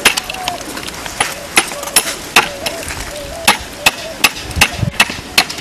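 Hammer driving a metal clamp into a tree trunk: a dozen or so sharp blows, two or three a second, with a short pause about halfway through.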